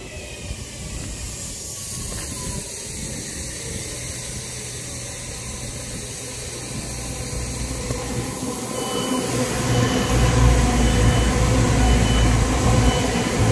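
CrossCountry Class 220 Voyager diesel-electric multiple unit running through the station without stopping. Its engines and wheels grow louder in the second half, with a heavy low rumble for the last few seconds as it passes close by.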